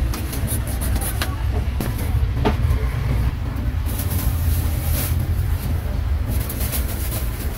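Steady low rumble of street traffic, with scattered clicks and clatter and brief hissing swells a few seconds in.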